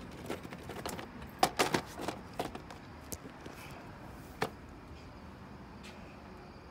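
A scatter of sharp clicks and knocks, loudest about a second and a half in and again after four seconds, then a faint steady hiss.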